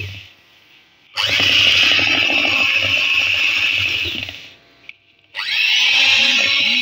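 Electric hand mixer beating gram-flour batter in a plastic bowl. It starts about a second in, stops for about a second, then starts again near the end.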